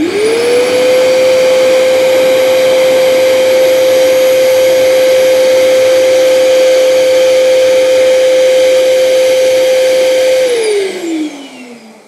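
AGARO Ace 1600-watt wet and dry vacuum cleaner switched on: its motor spins up within about a second to a steady, loud whine over rushing air. About ten and a half seconds in it is switched off and winds down, its pitch falling.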